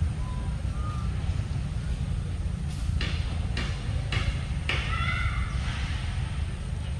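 Steady low rumble of wind on the microphone, with a run of short, high-pitched calls about three to five seconds in.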